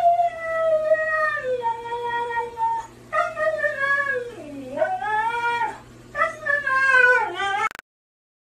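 Husky vocalising in three long, drawn-out howling calls whose pitch slides down and back up. The sound cuts off suddenly near the end.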